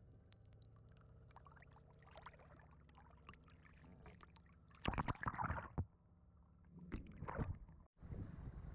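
Muddy river water gurgling and sloshing around a camera held at the surface beside a moving wooden longboat, with the boat's motor droning low and steady underneath. Two loud splashes come about five and seven seconds in, as the camera dips into the water. Near the end the sound cuts briefly, then turns to wind rushing over the microphone.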